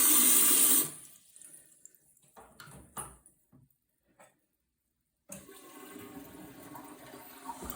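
A handheld bidet sprayer hisses loudly for about a second at the start, followed by a few light knocks. Then a newly installed toilet flushes, with water running steadily.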